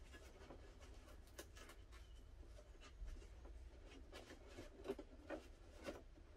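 Hands handling a cardboard toy box: faint scraping and rubbing on the cardboard, with light taps, the sharpest about five seconds in.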